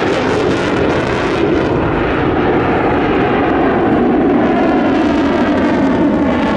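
Airplane engine noise: a loud, steady drone with a slight waver in pitch.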